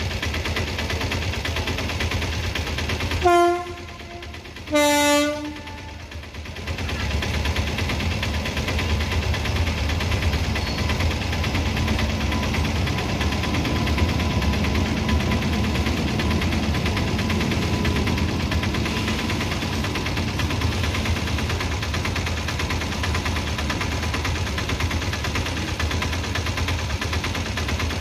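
Electric locomotive horn sounding two short blasts, the second a little lower and longer. Then comes the steady running and wheel noise of a slow freight train of covered BCN wagons hauled by a WAG-9 locomotive, rolling past a level crossing.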